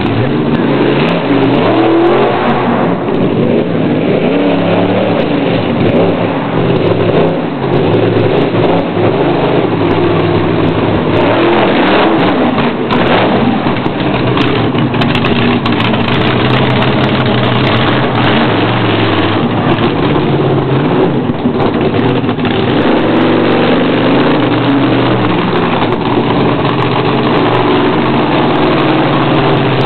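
Monster truck engine revving hard and repeatedly, its pitch rising and falling, with the throttle changing throughout.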